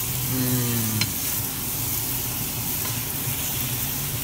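Beef strips and sliced vegetables sizzling steadily in a stainless-steel frying pan over a gas flame, stirred with a wooden spatula, as the added liquid and its alcohol cook down.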